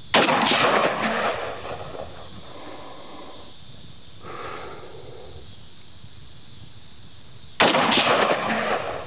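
Two single shots from a 5.56 rifle firing 55-grain Winchester rounds, about seven and a half seconds apart, each a sharp crack followed by an echo that dies away over a second or so.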